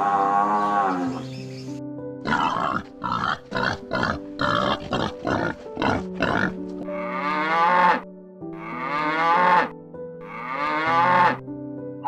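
Animal calls over background music. A bull's lowing call fades out about a second in, followed by a fast run of short grunts, then three long lowing calls about a second each.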